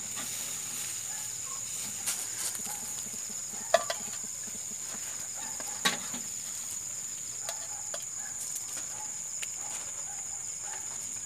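Steady high-pitched insect trill, with two sharp clicks about four and six seconds in as grilled chicken skewers are set down in a glass dish.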